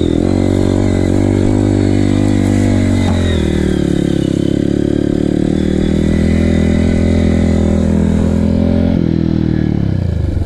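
Single-cylinder four-stroke Honda CRF dirt bike engine running under throttle on a trail climb. The pitch dips about three seconds in, holds steady, and falls again near the end.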